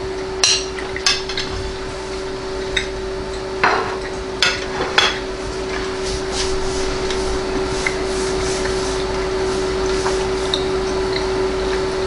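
A metal fork clinking and scraping against a ceramic plate about six times in the first five seconds, then fainter mouth sounds of chewing, over a steady low hum.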